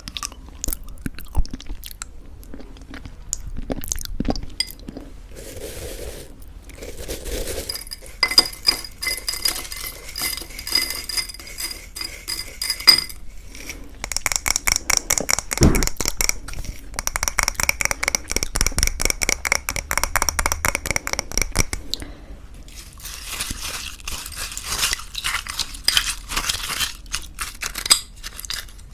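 A spoon clinking and scraping in a bowl of thick yogurt and granola, with crunching. Two long runs of quick, even strokes carry a light ringing tone, like stirring against the bowl. Softer scraping follows near the end.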